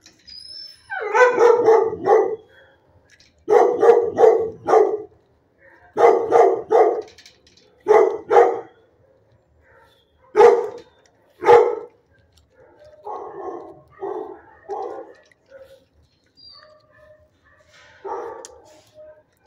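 A dog barking in short runs of two or three barks every couple of seconds, with fainter barks in the second half.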